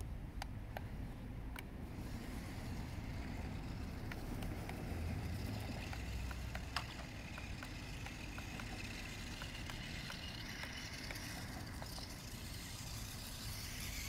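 Small electric drive motors of a toy remote-control stunt car whining as it drives over pavement and grass, the whine clearer in the second half, over a low outdoor rumble and scattered small clicks.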